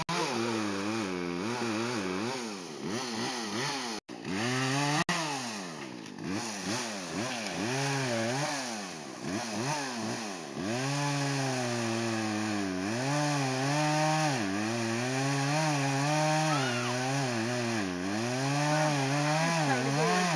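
Two-stroke chainsaw engine revving up and down again and again, then running at a steadier high speed with short dips. The sound breaks off briefly about four seconds in.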